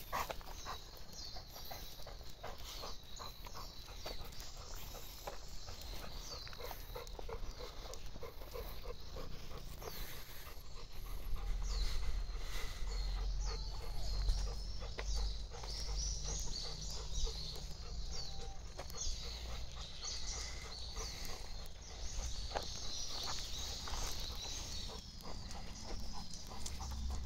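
Golden retriever panting on a leash walk, with footsteps on an asphalt path. A low rumble on the microphone for a few seconds near the middle is the loudest part, and short high chirps come through in the second half.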